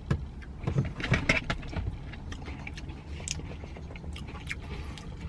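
Close-up eating sounds from a Dairy Queen Blizzard: scattered clicks and scrapes of a spoon and cup, with chewing, bunched in the first second and a half and again near the end, over a steady low hum.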